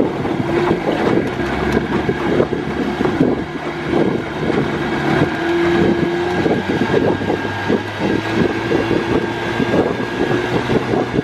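Motorboat engine droning steadily over the lake, with wind gusting on the microphone.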